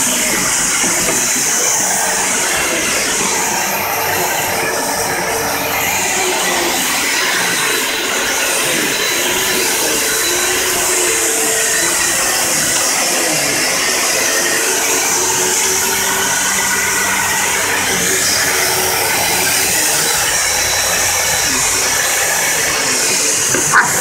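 Upright vacuum cleaner running steadily, a constant rushing hiss. One sharp knock just before the end.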